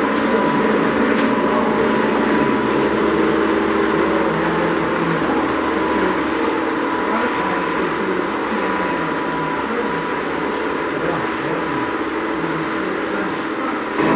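O scale model passenger train rolling past on two-rail track: a steady running hum of wheels and motor, over background chatter.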